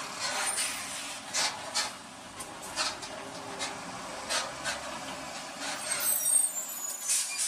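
Heavy-truck traffic picked up by a car's dash camera: steady road noise with irregular short, sharp hissing sounds and a brief high squeal about six seconds in.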